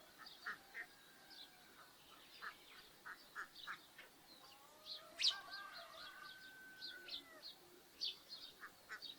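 Short bird chirps repeat throughout, with a sharp loud call about five seconds in followed by a drawn-out call. Farmyard ducks and geese call in the mix.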